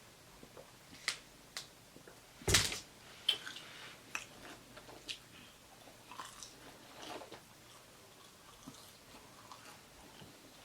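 Close-miked mouth sounds of someone biting and chewing a cheesesteak sandwich: scattered soft wet clicks, with one louder noise about two and a half seconds in.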